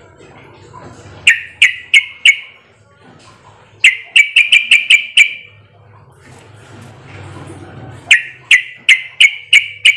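Yellow-vented bulbul (trucukan) giving runs of quick, sharp chattering call notes: a short run of four about a second in, a longer run near the middle, and another run near the end.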